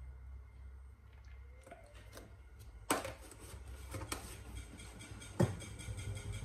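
A few sharp clicks and knocks from spice containers being handled and set down on a kitchen counter. The loudest come about three seconds in and again just past five seconds, the second a dull thud, over a low steady hum.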